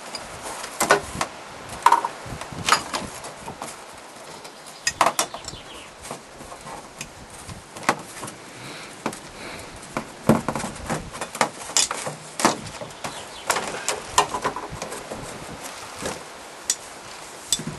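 Irregular clicks, knocks and rattles of a three-point seat belt and its metal fittings being fed through a van's wall panel and handled.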